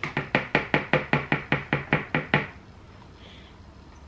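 A fast, even run of about a dozen sharp taps on a hard surface, roughly five a second, lasting about two and a half seconds and easing off at the end.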